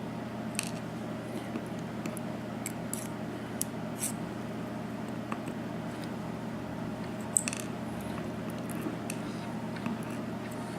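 Small, irregular metallic clicks and taps from lock cylinder parts, pins and tools being handled, with one sharper click a little past halfway. A steady low hum runs underneath.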